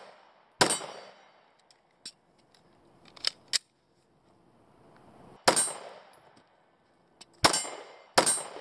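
Four pistol shots, each with a short ringing tail. The first is about half a second in. After a pause with a few faint clicks comes a second shot about five and a half seconds in, then two more close together near the end.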